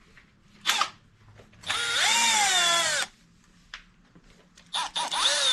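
Cordless power drill spinning 10 mm bolts out of an engine's timing cover, in two bursts of motor whine about a second and a half each. The pitch rises as the drill spins up, then cuts off. A sharp click comes before the first burst.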